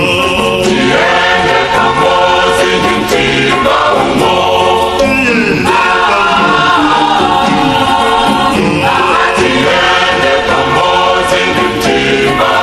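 Music with a choir singing, in a gospel style.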